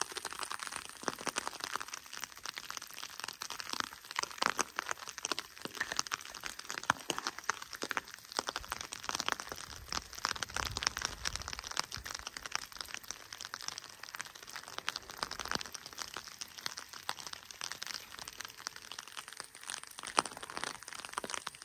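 Footsteps crunching on a loose gravel or cinder trail: a steady run of irregular crackles and crunches.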